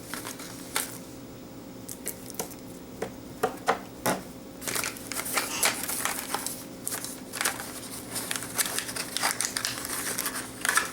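Packaging rustling and crinkling as hands work a taped-down toy loose from its box: a few scattered clicks at first, then busier, continuous crinkling from about halfway in.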